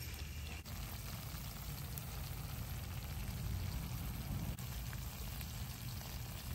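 Creamy pasta sauce sizzling and bubbling in a frying pan on a gas stove: a steady crackling hiss with a low rumble underneath.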